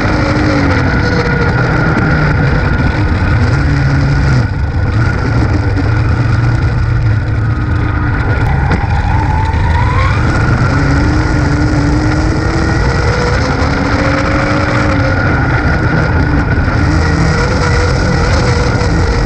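Dirt-track race car's engine at racing speed, heard loud from inside the cockpit. Its pitch falls and rises as the throttle is worked around the oval, with a brief dip about four seconds in and a rising climb about ten seconds in.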